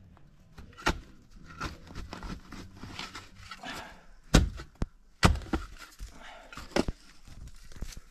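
A metal shovel digging into sandy soil and snow: the blade scrapes and strikes the ground in a series of sharp chunks a second or more apart, loudest about halfway through.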